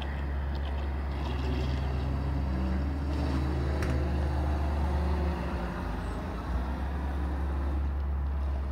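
Fastwave Tiger Shark brushless radio-controlled speedboat running at speed as it pulls away, over a steady low rumble.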